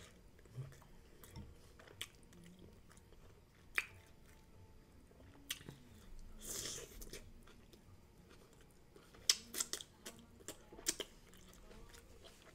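Close-miked chewing of food, with scattered wet mouth clicks, a brief breathy rush about halfway through, and a quick run of clicks near the end.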